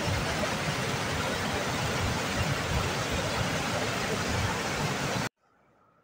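Waterfall on the Río Aguamula (Cascada de los Mellizos) pouring into a churning pool: a steady rush of water that cuts off abruptly a little after five seconds in.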